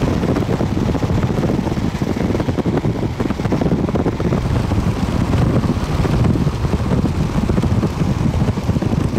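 Strong wind buffeting the microphone, a loud, gusty rumble.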